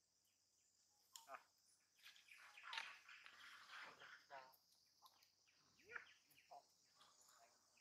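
Faint, scattered animal calls: short high chirps and brief pitched glides, with two short falling squeals about six seconds in.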